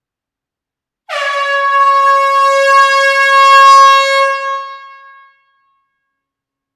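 Air horn sounding one long steady blast of about four seconds, starting about a second in and tapering away at the end.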